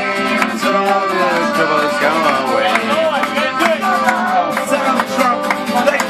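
Live Irish-style folk music: an acoustic guitar strummed in a steady rhythm and a fiddle playing, with a man singing over them.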